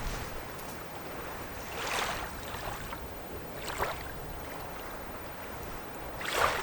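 Small lake waves softly lapping a sand and pebble shore, a gentle wash every couple of seconds, the loudest near the end.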